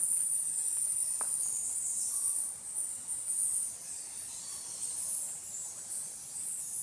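Insects chirring in a steady, high-pitched chorus that wavers slightly, with a faint click about a second in.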